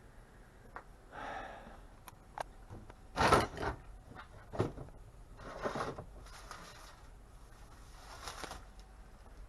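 Intermittent knocks, clatter and scrapes of scrap microwave parts being handled, with the loudest clatter about three seconds in and smaller knocks and scrapes before and after.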